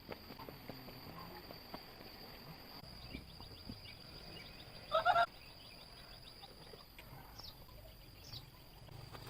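Outdoor rural ambience with a faint steady high whine and scattered small clicks. A short, loud animal call comes about halfway through, and two brief bird chirps come near the end.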